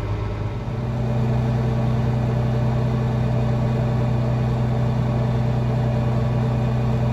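Tractor engine running steadily, heard from inside the cab. A little under a second in it picks up to a louder, steadier note and holds it.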